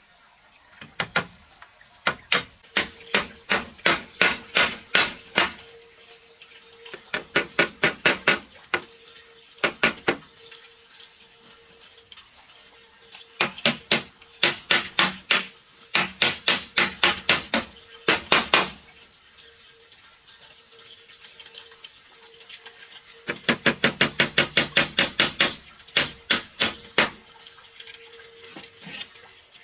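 Hammer striking nails into wood in runs of quick, even blows, about three to four a second, stopping and starting several times.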